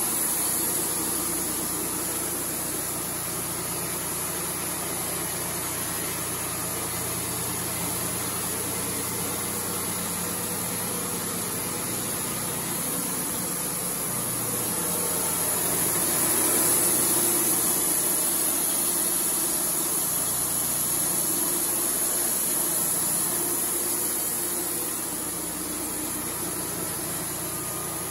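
Wood-Mizer LT35 portable band sawmill running steadily, its engine and band blade making a constant mechanical hum with a high hiss. It swells a little in loudness in the middle and eases off near the end.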